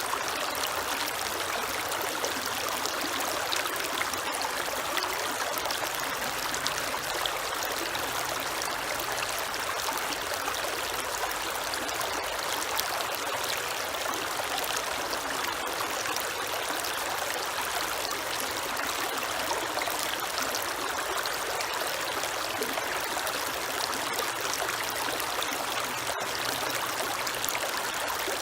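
Creek water running steadily over rocks, a continuous rushing and trickling that does not change.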